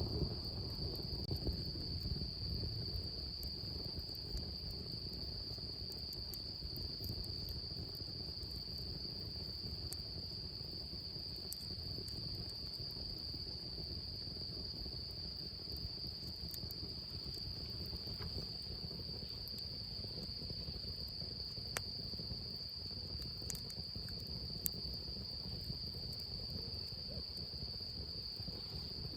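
Crickets trilling steadily and high-pitched, with scattered sharp little pops and crackles from a wood campfire.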